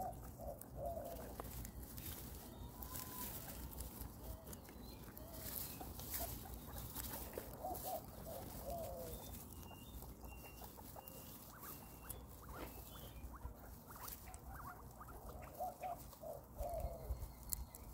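Guinea pigs munching fruit and vegetables: steady crisp chewing and crunching clicks. Small groups of short squeaky calls come at the start, about halfway through and again near the end.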